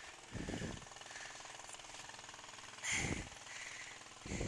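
Yamaha Vino scooter's small single-cylinder engine idling with its muffler removed: a fast, even pulsing, broken by three short low surges, about half a second in, about three seconds in, and near the end.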